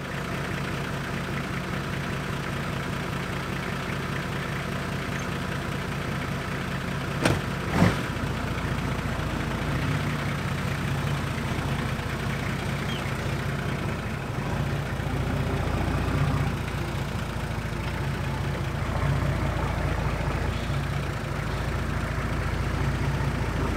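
Four-wheel-drive engine idling steadily, then pulling away and driving slowly, its low hum getting louder. Two sharp knocks about seven seconds in.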